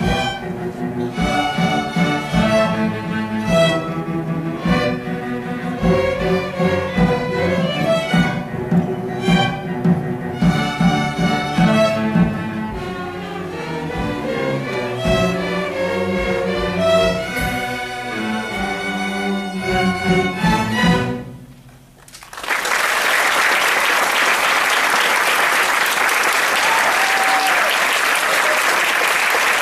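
Student string orchestra of violins, cellos and double basses playing a piece, which ends about three-quarters of the way through. After a brief hush the audience applauds.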